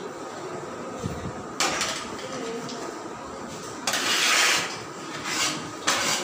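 Background chatter of a room full of people eating, broken by several short bursts of rushing noise, the longest and loudest about four seconds in.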